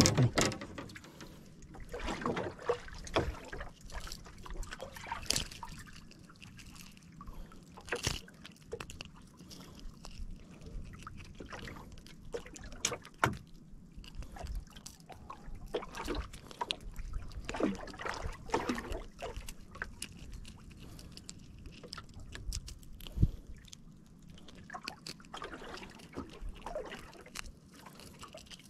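Water lapping and sloshing against a small boat's hull, with scattered light knocks and handling noises from the boat.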